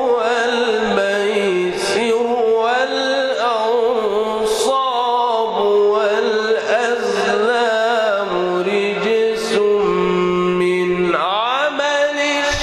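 A man's voice reciting the Quran in the melodic mujawwad style, drawing out long notes with ornamented turns of pitch and holding one note for several seconds before a quick rising glide near the end.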